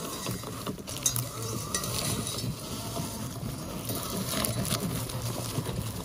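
Home-built remote-control saw-blade robot driving over dry dirt and weeds: its electric motors hum steadily under a constant crackle of debris.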